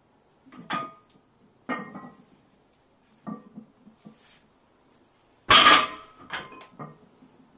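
Loaded 140 kg barbell deadlifted off the floor, its weight plates clinking and rattling on the bar, then set back down with a loud metallic clank about five and a half seconds in, followed by a few smaller rattles as the plates settle.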